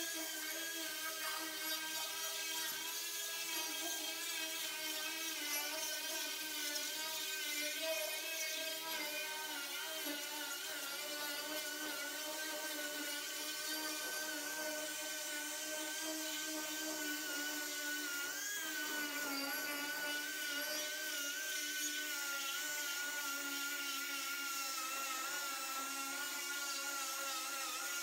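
Pneumatic right-angle die grinder with a diamond-plated, roughly 36-grit disc, whining steadily as it scuffs the smooth face of a PLA 3D print to give adhesive something to grip. Its pitch wavers slightly as the disc is worked over the surface, dipping briefly about two-thirds of the way through.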